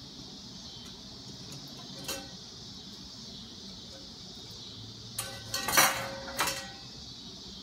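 Bakeware and a ceramic plate being handled: a light knock about two seconds in, then a quick cluster of clinks and clatter with a brief ringing between about five and six and a half seconds in, as the metal springform pan base and wire cooling rack are lifted away.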